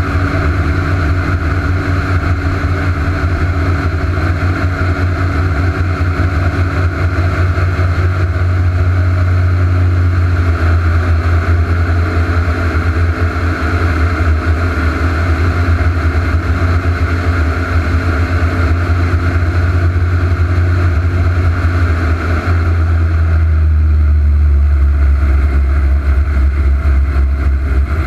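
Airboat engine and propeller running steadily under way at speed. Near the end the higher part of the sound fades and it turns deeper.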